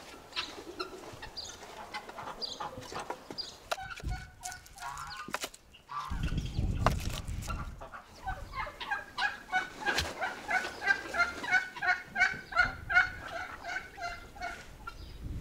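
Farmyard poultry calling: a long run of quick, evenly repeated pitched calls, about three a second, over the second half.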